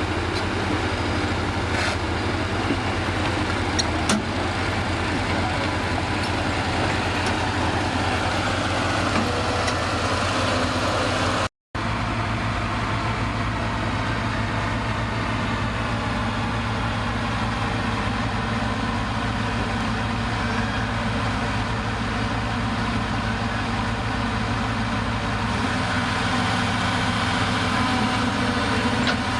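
A heavy bulldozer's diesel engine running steadily at idle, with a few faint metallic clicks.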